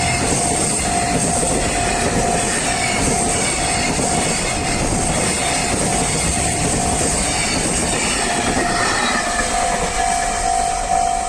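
Freight train rolling through a Japanese level crossing, wheels clattering over the rail joints, while the crossing's warning bell rings in a steady repeating pulse. The train's rumble eases near the end and the bell stands out more clearly.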